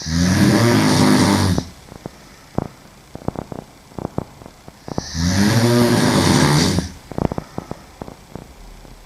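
A young woman sleeping on her back, snoring: two long, loud snores about five seconds apart, each lasting a second and a half or so, with faint clicks in the quiet between them.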